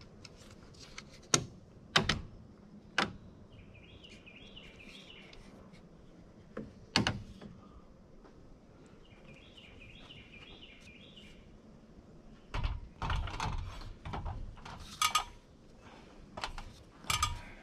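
Sharp clicks and knocks of DeWalt one-handed bar clamps being ratcheted tight onto wooden framing boards: a few separate clicks, then a quick run of clicking in the last few seconds. A bird sings two short phrases of quick repeated notes in between.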